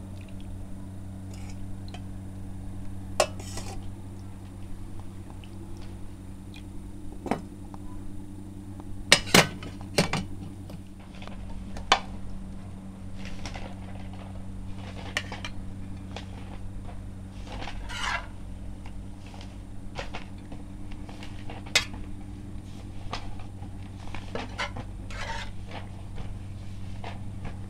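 Metal spatula and ladle clinking, knocking and scraping against a wok, a soup bowl and a plate while food is served, with the loudest pair of knocks about nine seconds in. A steady low hum runs underneath.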